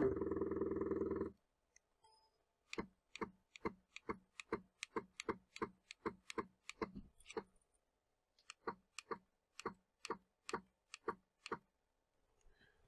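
CNC mini mill's Z-axis stepper motor jogging the spindle down: a steady buzz that stops after about a second, then a run of short ticks, about two a second with a brief pause in the middle, each a single incremental jog step as the tool is eased down to touch off the Z zero.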